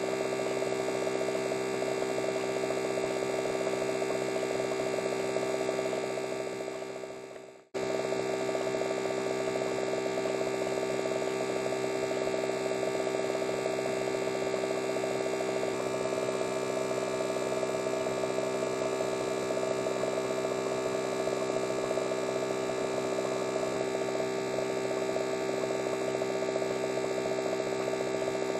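Electric hair clippers running with a steady buzzing hum. The hum fades out about six seconds in, then cuts back in abruptly a second and a half later and carries on steadily.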